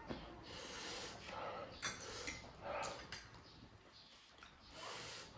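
People eating very spicy food: short hissing breaths through the mouth and sniffs, with a few soft mouth and eating noises between them.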